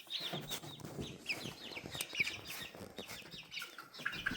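Five-week-old chicks peeping, a run of short, high, falling calls repeated in quick succession.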